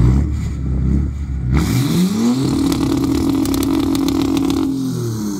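Big-turbo BMW 330d's M57 straight-six turbodiesel revved hard while standing: it idles, climbs steeply about a second and a half in, holds high for about two seconds, then drops back toward idle near the end.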